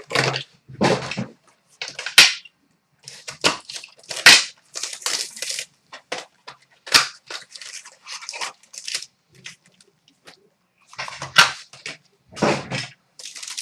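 Foil trading-card packaging being torn open and crinkled, with cards handled in between: a series of irregular crackles and rustles.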